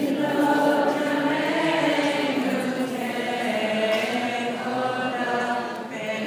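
A group of voices singing a slow, chant-like melody together, with long held notes that glide gently in pitch.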